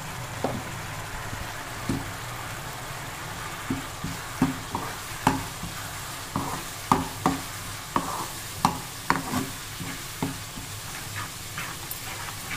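Metal spoon stirring roasted gram flour into a thick tamarind-jaggery gravy as it cooks in a pan on the stove. The spoon knocks and scrapes against the pan in many quick clicks, thickest in the middle stretch, over a steady sizzle.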